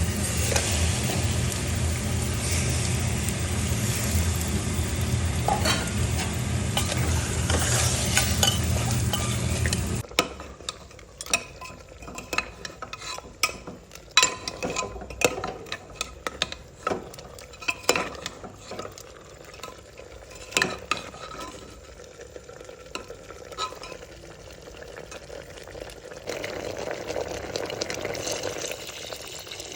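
Meat frying in a pan: a loud, steady sizzle with a low rumble underneath. About ten seconds in, this gives way abruptly to a quieter stretch of clinks and scrapes as a utensil stirs the pan.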